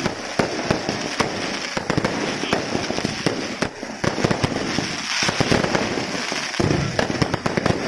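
Aerial fireworks bursting overhead: a rapid, unbroken run of bangs and crackles from many shells going off in quick succession.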